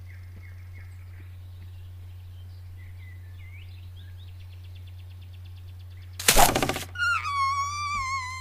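Forest ambience from the animated film's soundtrack: faint bird chirps and a short trill, then about six seconds in a loud, brief burst of noise, followed by a long whistling tone that dips slightly in pitch and holds. A steady low hum runs underneath.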